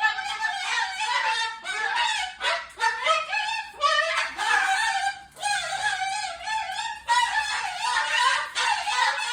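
Pet parrot vocalizing loudly: a continuous stream of warbling, chattering calls that rise and fall in pitch, with brief breaks about four and five seconds in.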